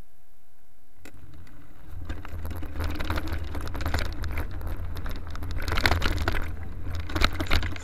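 Mountain bike ridden over a rough dirt trail, heard from a camera mounted on the bike: a low rumble with tyre crunch and the chain and frame rattling over bumps, starting about a second in as the bike sets off, with the sharpest knocks near the end.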